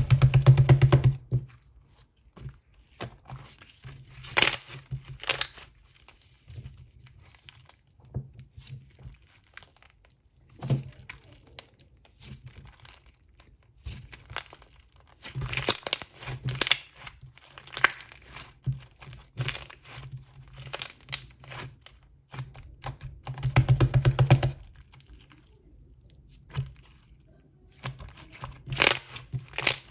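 Irregular crinkling and tearing noises with scattered clicks and taps, in a small room. They are loudest in short bursts at the very start, about halfway through and near four-fifths of the way.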